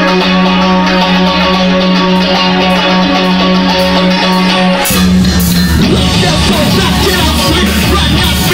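Live rock band playing loudly. Electric guitar and bass hold a steady, ringing chord, and about five seconds in the drums and full band come in with cymbal crashes.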